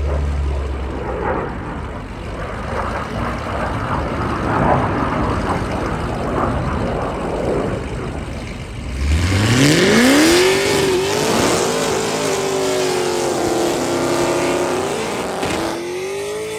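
Dodge Charger SRT Hellcat's supercharged V8 rumbling at low revs, then about nine seconds in revving sharply up and holding high revs for a burnout, with the hiss of spinning tyres above it.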